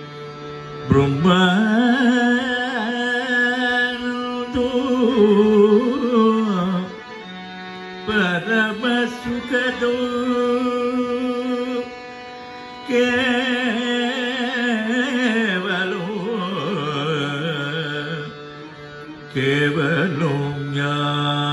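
Carnatic vocal music: a male voice sings a kriti in raga Malayamarutam in long phrases, with wavering ornamented notes, over a steady harmonium. The voice breaks off three times for about a second while the harmonium's held notes carry on.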